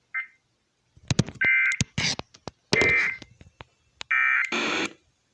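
Emergency Alert System SAME data bursts from a weather radio: three short warbling two-tone digital chirps, about one and a half seconds apart, sent as the end-of-message code that closes the NWS severe thunderstorm warning. Sharp clicks and bursts of noise fall between the chirps.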